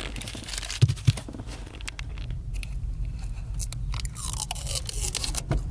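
Irregular clicks, taps and scraping of hands working on a car's pedal assembly, pushing out a pedal pivot pin and fitting a new pedal.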